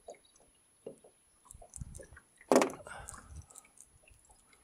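Scattered small clicks and knocks from fishing tackle being handled in a small boat, with one louder noise about two and a half seconds in.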